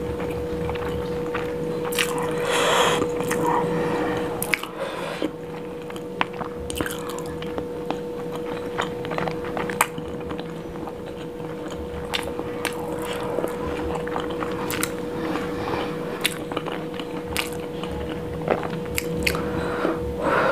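Close-miked chewing of a mouthful of biryani rice eaten by hand, with many small wet mouth clicks and smacks. A denser bout of chewing comes about two to three seconds in.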